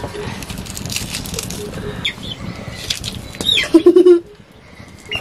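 Knife cutting through a red onion held in the hand, a run of quick small cuts for about three seconds. About three and a half seconds in comes a loud short squawk from a chicken, the loudest sound here.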